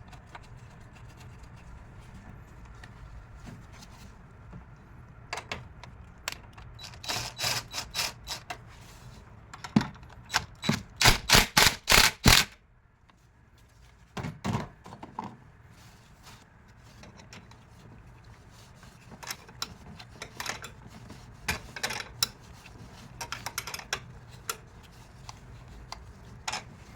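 Hand tools and metal parts clicking and knocking while a car battery's hold-down bracket is fitted, with a run of loud, quick clicks about ten seconds in.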